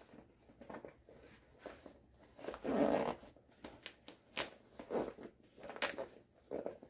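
Zippers on the fabric pockets of a Rhino USA nylon tool roll being worked and pulled shut, in a run of short rasps and fabric rustles; the longest and loudest zip comes a little under halfway through.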